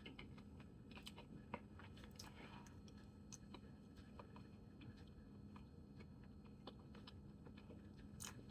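Faint chewing of boiled yellow yam and corned beef: scattered soft wet mouth clicks over a low steady hum.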